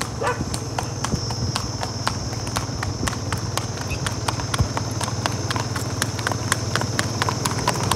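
Marwari horse's hooves clip-clopping on an asphalt road, a quick, even rhythm of several sharp strikes a second.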